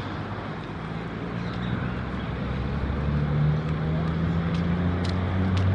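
Steady low engine drone, its pitch shifting up about halfway through, with a few faint clicks near the end.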